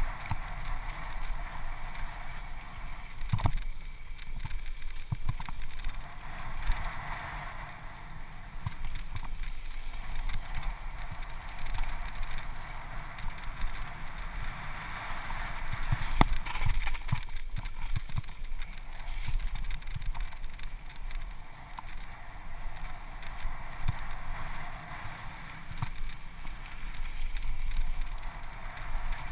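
Wind rushing over the GoPro's microphone and tyres rumbling on a dirt trail as a Niner One9 singlespeed mountain bike rides fast downhill, the rush rising and falling, with occasional sharp knocks and rattles from the bike over bumps.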